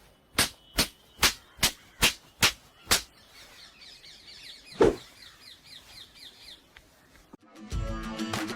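Eight sharp, evenly spaced knocks, about two and a half a second, followed by a bird calling with a quick run of short falling chirps and one louder thump partway through. Music begins near the end.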